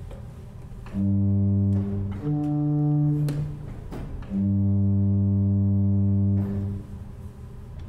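Johnson & Son mechanical-action pipe organ sounding three low held notes in turn, the last the longest, with soft clicks of the key action between them, as the pedals are tried with the manuals coupled.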